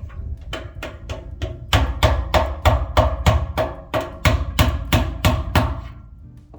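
Rapid hammer taps on metal, about three a second for some five seconds, each with a short ringing tail, then stopping.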